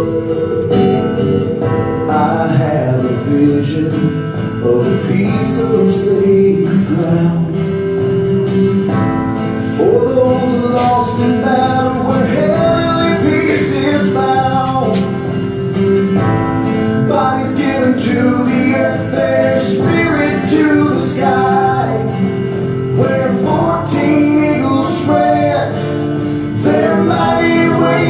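Music with singing over guitar, the soundtrack of a screened video played through the hall's speakers.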